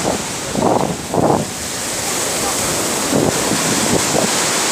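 Sea surf washing up the beach, with wind buffeting the phone's microphone throughout.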